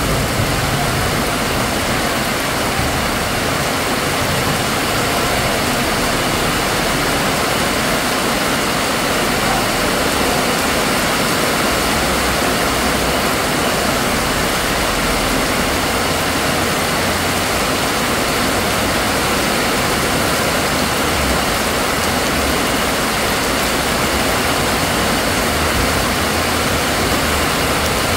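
Heavy downpour: a loud, steady hiss of rain falling on a wet street and pavement.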